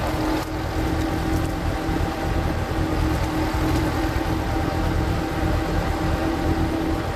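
Power tiller's single-cylinder diesel engine running steadily, driving a screw-type log splitter, with a few faint knocks. The audio is sped up to double speed, which raises the engine's pitch.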